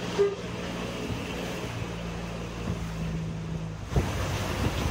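Fishing boat's diesel engine droning steadily under way, with the bow wave rushing and splashing along the hull and wind on the microphone. Two short thumps, just after the start and about four seconds in.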